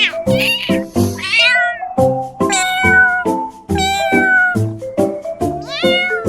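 Domestic cat meowing about five times, a couple of the calls drawn out and falling in pitch, over background music with short repeating notes.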